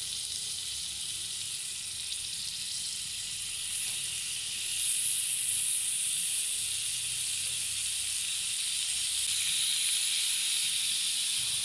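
Marinated beef kebab skewers sizzling in hot oil on a ridged grill pan: a steady hiss that grows louder about five seconds in as more skewers go on.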